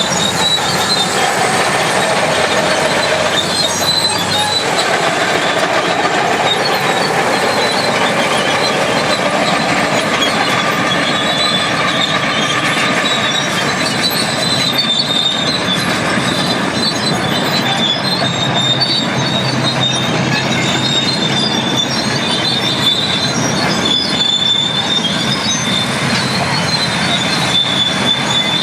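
International Harvester TD25 Series C crawler bulldozer working, its diesel engine running steadily under the squeal of its steel tracks, a high thin squeal that holds on through the second half.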